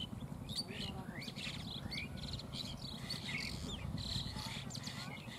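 Small birds chirping, many short rising and falling calls overlapping, over a steady low rumble.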